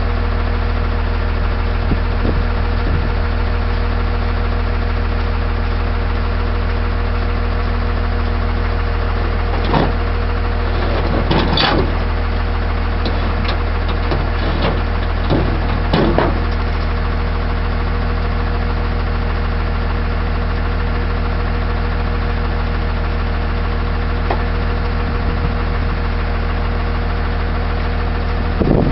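Tow truck (wrecker) engine idling steadily, with a few short knocks about ten to sixteen seconds in and again near the end.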